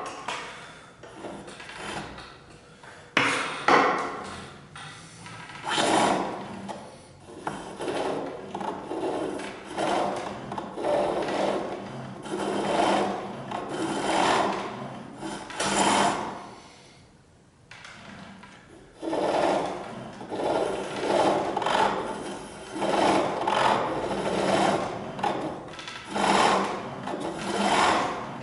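Pole lathe turning a wooden handle: a chisel shaves the spinning wood in rhythmic strokes, about one a second, as the cord drives the workpiece back and forth. A few sharp knocks come in the first seconds, and the cutting stops briefly about two-thirds of the way through.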